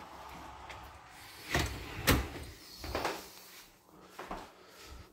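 A wooden door being handled: a few separate knocks and bumps about a second apart, the sharpest about two seconds in.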